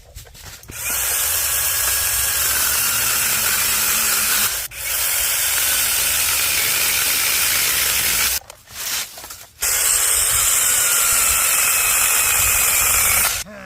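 Battery-powered mini chainsaw running and cutting through oak limbs, a loud hissing rasp with a faint motor whine that sags and recovers under load. It runs in three long cuts with short pauses between them.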